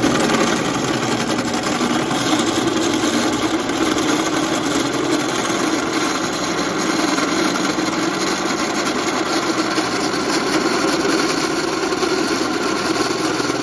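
Drill press running, its twist bit boring a new water-jacket hole through the deck of a 351 Cleveland cylinder head. A steady whir with cutting noise that cuts off abruptly right at the end.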